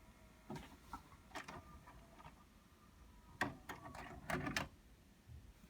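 Pioneer DVR-RT502 VHS tape mechanism running its eject cycle: faint motor whirring and a series of soft clicks, with a sharper knock about three and a half seconds in. The cassette strikes the tape door because the door fails to open, and the mechanism draws it back in.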